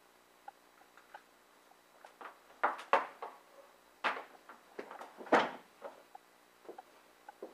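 A small VGA-to-composite converter box and its cables being handled and set down on a tabletop: a few knocks and rustles, the loudest about three and five seconds in, with faint ticks between.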